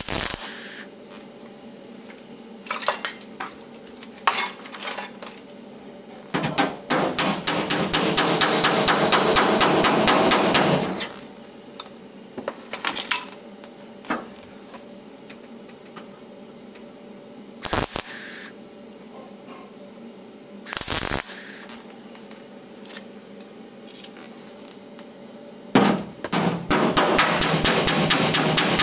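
A short MIG welding tack on car body panel steel, then rapid hammer-and-dolly blows on the steel in two long runs, flattening the weld so the panel does not pull in and warp. Two short bursts of noise fall between the runs.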